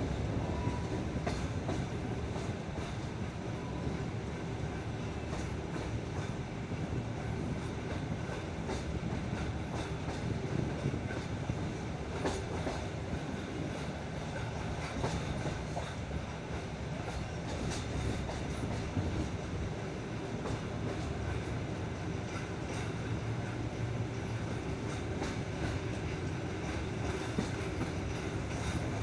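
Passenger train carriage rolling along the track: a steady rumble of wheels on rail, with scattered clicks as the wheels pass over rail joints and points.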